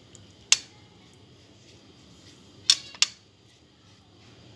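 Silicone pastry brush tapping against the egg bowl and the baking tray while egg wash is brushed onto cinnamon-roll dough: a few sharp light clicks, one about half a second in and two close together about three seconds in, over faint room noise.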